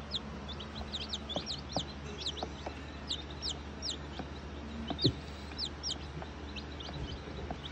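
Several baby chicks peeping: short, high peeps that fall sharply in pitch, overlapping at several a second. A soft knock comes about five seconds in.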